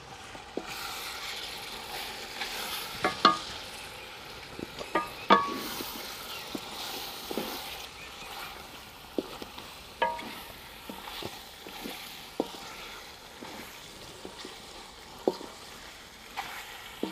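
Pieces of baam fish sizzling as they are fried and stirred into masala in an aluminium pot, with a wooden spatula knocking and scraping against the pot. The loudest knocks, about three and five seconds in, make the pot ring briefly.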